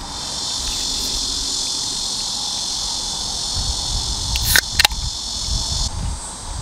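Steady, high-pitched chorus of summer insects, cutting off suddenly near the end. Two sharp clicks close together about four and a half seconds in stand out above it.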